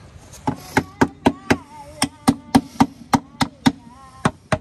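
Rapid hammering on wood, sharp even blows about four a second, starting about half a second in.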